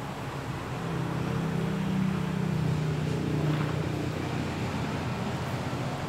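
A low, steady engine-like hum that swells from about a second in and eases off again after the middle.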